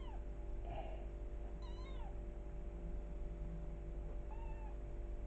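Small kitten mewing: a few short, high, arching mews, the last one near the end fainter, over a steady low background hum.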